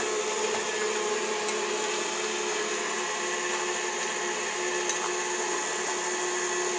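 Electric stand mixer motor running steadily, beaters working cookie dough as dry ingredients are added, a constant hum.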